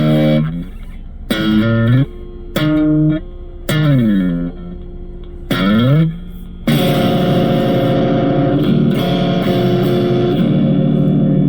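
Electric guitar played through a Blackstar ID Core V3 10-watt practice amp with a distorted tone: a few short notes and phrases, several sliding down in pitch, then a chord rung out and held for the last few seconds.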